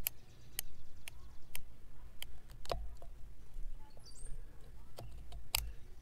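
Sharp metal clicks and taps, about a dozen at irregular intervals, as a steel retaining clip (circlip) is worked back into its groove on a motorcycle's rear-hub sprocket carrier with a metal hand tool.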